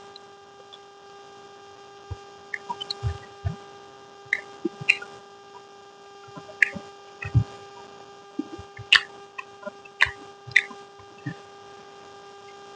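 Close-up eating sounds: irregular small mouth clicks and soft low thumps of chewing, spaced every half second to a second, over a steady electrical hum.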